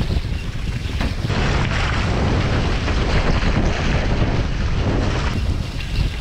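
Wind buffeting the microphone and water rushing past a foiling A-Class catamaran sailing at about 23 knots. From about a second in until near the end the rush turns harsher and hissier.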